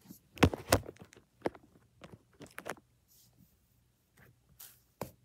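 Slime being squeezed and kneaded by hand, giving a string of short sticky pops and clicks, the loudest about half a second in.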